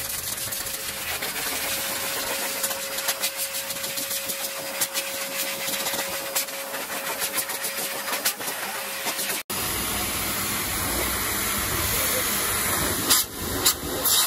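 High-velocity pet dryer blowing a steady rush of air through its hose and nozzle into a Samoyed's thick wet coat. The sound changes abruptly about nine seconds in and becomes fuller and lower, with a few sharp clicks near the end.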